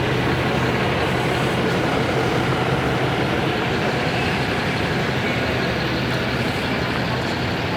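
Steady vehicle running noise: an even, unchanging wash of sound with a low steady hum underneath.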